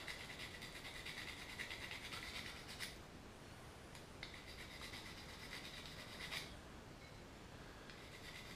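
A knife edge rubbed against a diamond sharpening bar, a quiet scratchy rasping in stretches with short pauses about 3 and 7 seconds in. The blade is being deliberately dulled on the bar to grind away its chipped edge and burr before resharpening.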